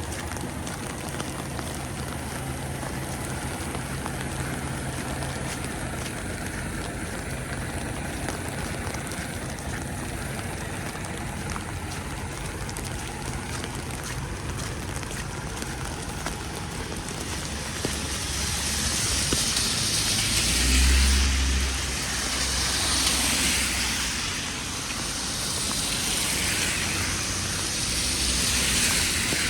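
Steady outdoor hiss with a faint low hum, then from about two-thirds in several vehicles pass close by one after another, tyres hissing on the road; the loudest pass, about 21 s in, brings a low rumble.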